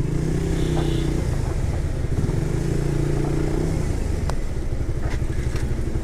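Suzuki GSX-R150's single-cylinder engine running as the motorcycle is ridden in traffic, its note rising and falling a little with the throttle.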